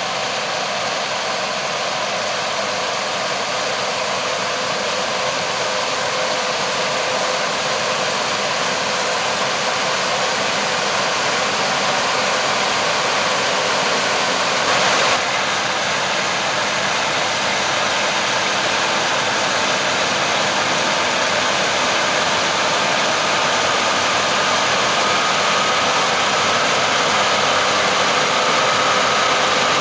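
Heavy farm machinery running steadily, growing slightly louder, with one brief louder noise about halfway through.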